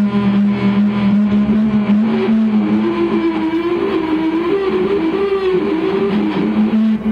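Shoegaze band's distorted electric guitars playing live, holding a loud, steady droning note with a higher note wavering up and down above it through the middle.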